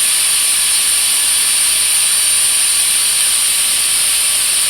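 Router spindle of a hobby CNC machine running steadily with a high whine and hiss, its bit machining a round pocket in softwood.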